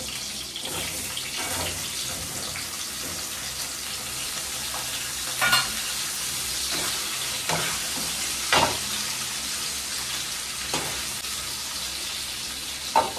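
Cut drumstick (moringa) pods sizzling as they fry in hot oil in a wok. A metal spatula stirs them, knocking sharply against the pan about five times.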